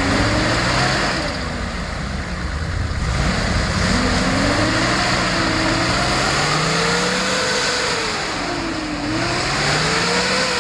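Off-road 4x4's engine revving up and down several times under load as it works through a mud hole.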